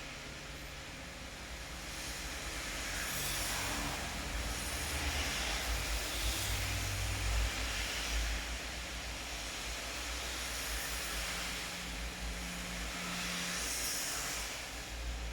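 Steady rain falling, an even hiss that swells louder a few seconds in and again near the end, over a low rumble.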